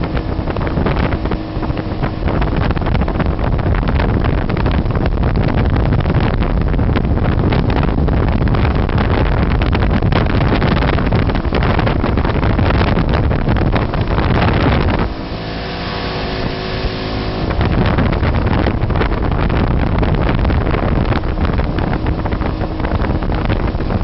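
Motorboat engine running underway, with wind buffeting the microphone and the rush of the hull through the water. About fifteen seconds in, the noise eases for a couple of seconds and the engine's steady hum shows through before the rush returns.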